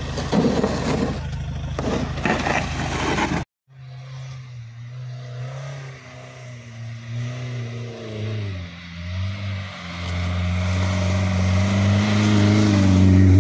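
Land Rover Freelander's engine running as it drives toward the listener, its pitch rising and falling with the throttle and growing steadily louder over the last few seconds. Before it, a few seconds of loud, rough noise cut off abruptly.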